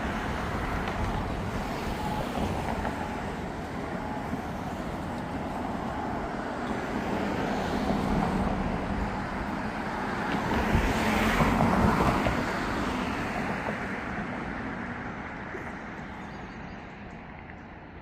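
Road traffic going by: a steady noisy rush that swells as a vehicle passes about eleven seconds in, then fades away toward the end.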